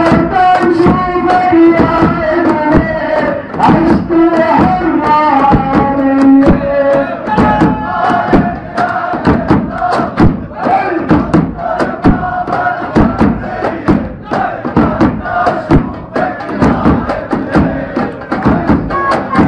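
Large crowd of demonstrators chanting and singing in unison, with sharp percussive beats keeping time throughout.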